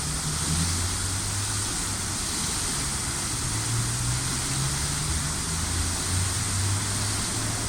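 Steady rushing of water from a public fountain, with a low, wavering engine hum from passing traffic underneath.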